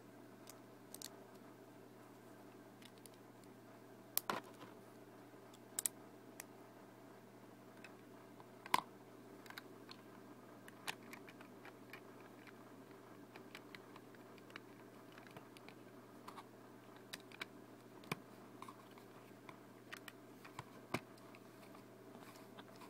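Plastic Lego pieces clicking and tapping as they are handled and pressed together: scattered sharp clicks at irregular intervals, the loudest about nine seconds in, over a faint steady hum.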